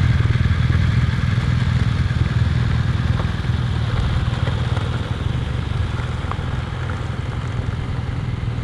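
BMW F-series GS adventure motorcycle's parallel-twin engine running at steady, low revs as the bike rides off, growing slightly quieter over the second half.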